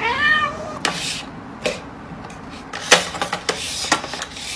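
A cat gives one short meow at the start, followed by a few scattered clicks and knocks of dishes.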